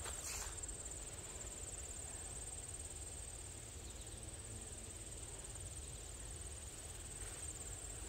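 Insects in the field trilling in a steady, high-pitched chorus, over a low rumble.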